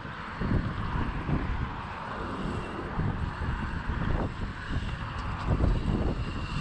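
Wind gusting on the microphone, with irregular low buffeting over a steady rushing noise.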